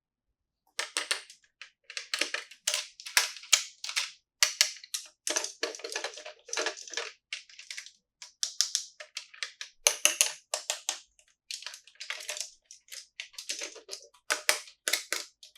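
Plastic packaging crinkling and rustling as it is handled, in quick uneven bursts with short pauses between them.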